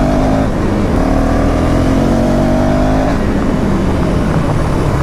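Motorcycle engine being ridden hard, its note climbing in pitch, breaking off about half a second in, then climbing again and fading out about three seconds in, with heavy wind rumble on the microphone.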